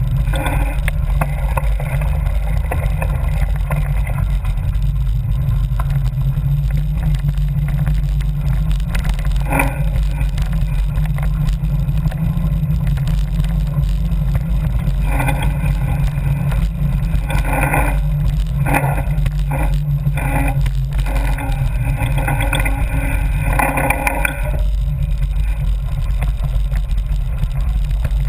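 Mountain bike riding a dirt trail, heard from a camera mounted on the bike or rider: a steady low wind and road rumble with stretches of clattering from the bike over the bumpy ground, the longest from about fifteen to twenty-four seconds in.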